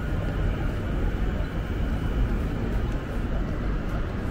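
Steady city street background noise: a low rumble of traffic with no single event standing out.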